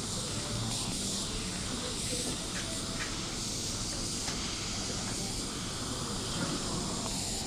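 Steady hiss of air flowing through a premature baby's nasal oxygen cannula.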